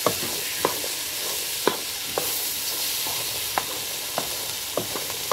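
Pigeon peas, corn and meat frying with a steady sizzle in a large metal pan, stirred with a wooden spoon that knocks and scrapes against the pan at irregular intervals.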